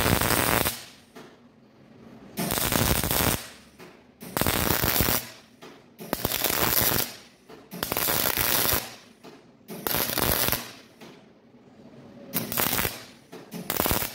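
MIG welder arc crackling in about eight short runs of roughly a second each, with brief pauses between, as a weld bead is built up on a thick steel blade.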